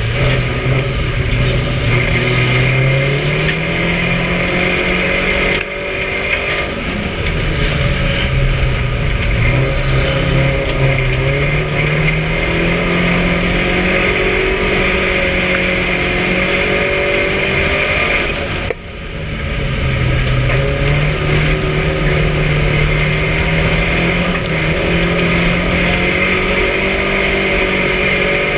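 Race car's engine heard from inside the car while it laps. The note repeatedly climbs in pitch and falls back, with two sudden drops in revs about 6 seconds and about 19 seconds in, over a steady rush of road and wind noise.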